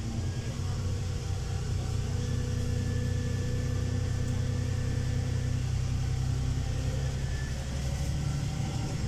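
Inside a LiAZ 5292.22 city bus under way: a steady low engine and road rumble. A faint steady whine above it fades out about seven seconds in.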